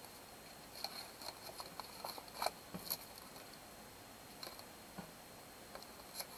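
Paper sheet and embroidery floss of a cross-stitch kit being handled and folded together: scattered light crinkles and clicks, busiest in the first three seconds, then a few isolated ticks.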